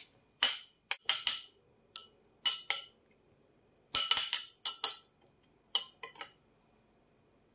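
Metal spoon stirring a cucumber relish in a cut-glass bowl, knocking against the glass in small clusters of sharp, ringing clinks with short gaps between. The clinks stop about six seconds in.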